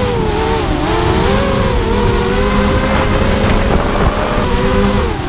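Brushless 2204 2300kv motors and 5-inch props of a 250 miniquad racing drone whining, the pitch rising and falling with throttle, with a dip about half a second in and another near the end. Wind buffets the onboard camera's microphone underneath.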